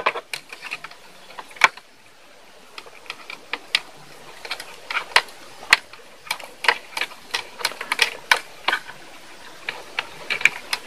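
Irregular small clicks and crackles as hands twist motorcycle wiring together, joining the ground wires, with wire ends and insulation rubbing close by. The clicks come several a second, with a short lull about two seconds in.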